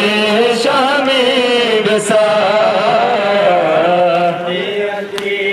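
A male noha reciter chanting a Shia mourning lament (noha) for Imam Husayn, singing a long, slowly wavering melodic line.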